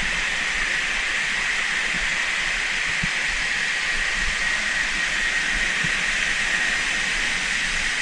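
Creek water rushing in a steady hiss, with a thin high-pitched whine held steady over it.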